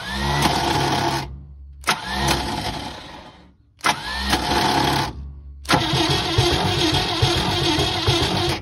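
1971 International truck's six-cylinder engine cranked over by its starter in four bursts, the last the longest, without firing, for a compression test on cylinder number two. That cylinder reaches only about 40 psi: low compression.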